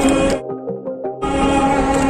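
Background music, a melody of held notes. A loud rush of noise covers it at the start, cuts off abruptly, and comes back in the second half.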